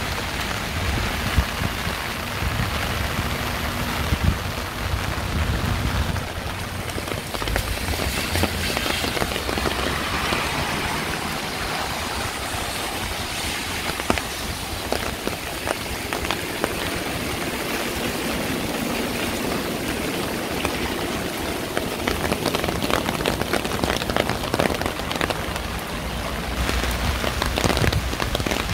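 Steady rain falling, an even hiss speckled with many separate drops ticking close by. A low rumble sits under it for the first several seconds.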